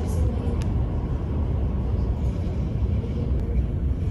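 Steady low rumbling background noise, with a couple of faint clicks about half a second in and near the end.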